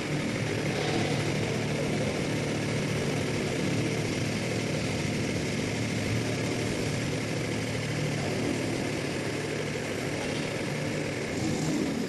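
Solar pile driver's engine running steadily.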